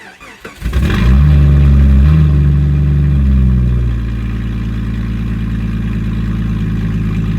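Jeep engine revving, then settling to a steadier, lower idle about four seconds in.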